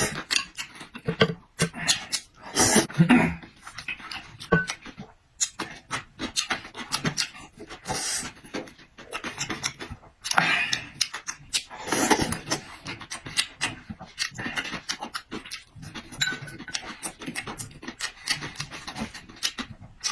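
Close-miked eating sounds: wet chewing and lip-smacking with many small clicks, broken by louder slurps or breaths every few seconds.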